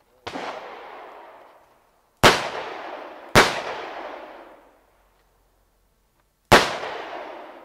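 Four 9mm pistol shots fired at uneven intervals, each followed by a long echoing tail that dies away over a second or two; the first shot is softer than the other three.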